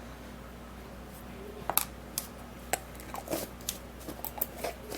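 Light, irregular clicks and taps of a spoon against a bowl or jar while coconut oil is scooped into the mixture, starting about one and a half seconds in and coming a dozen or so times.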